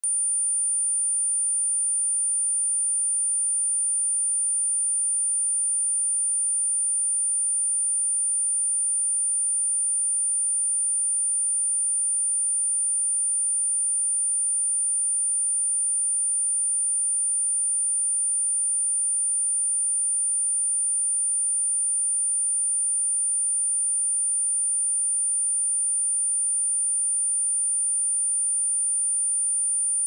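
A pure 9247 Hz sine-wave test tone, one steady high-pitched pitch at constant loudness, played as a speaker test and speaker-cleaning tone.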